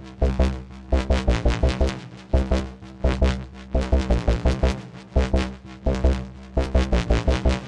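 Drum and bass track: fast programmed drum-machine breakbeat with heavy sub-bass hits and synthesizer lines.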